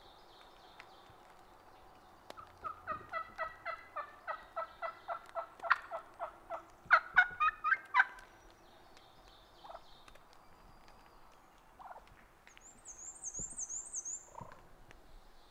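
Wild turkey hen calling: a long run of about twenty evenly spaced yelps that grows louder toward the end. A small bird sings a brief high phrase near the end.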